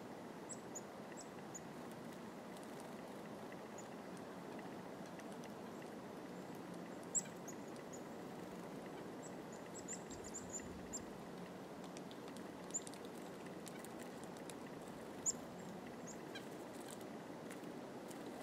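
Small songbirds giving scattered, very short, high chip notes over a steady background hiss, with three sharp clicks standing out as the loudest sounds.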